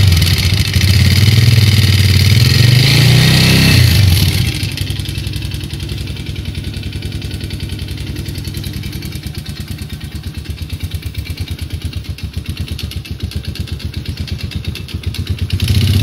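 Yamaha Jupiter Z's single-cylinder four-stroke engine held at high revs, then dropping to idle about four seconds in, idling with a rapid, even knocking, and revving up again near the end. The noise is the sign of a worn, loose connecting rod.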